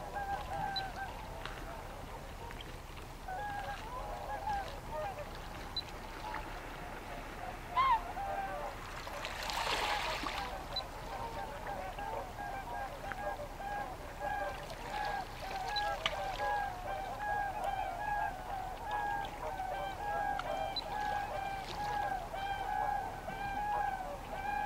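A flock of waterfowl calling with many short, repeated honks, one louder rising call a third of the way in, and the calls growing denser and more continuous in the second half. A brief rush of noise comes just before the middle.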